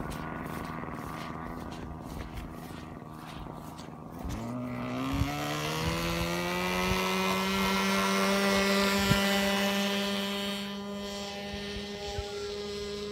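Radio-controlled model gyrocopter's motor: a steady low hum, then about four seconds in it spins up with a whine that rises in pitch and holds steady as the model takes off. It grows louder, then eases off a little after about ten seconds.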